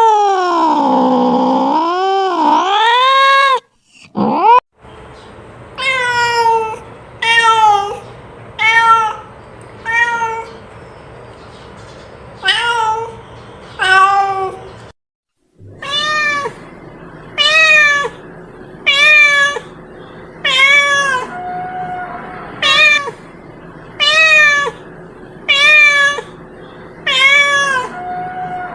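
A cat meowing: one long meow that dips and rises in pitch, then a run of short meows, about one every second and a half, over a faint steady hum. The sound drops out abruptly twice.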